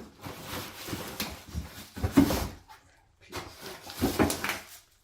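Rustling of packaging and knocking of loose parts as a pressure washer is unpacked from its box, in two spells with a short pause near the middle.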